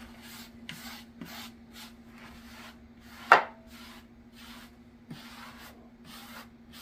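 Stiff grooming brush stroked through the hair of a taxidermied deer shoulder mount, brushing cleaning solution into it: a dry rubbing swish repeated about two to three times a second. One sharper, louder clack comes a little past halfway.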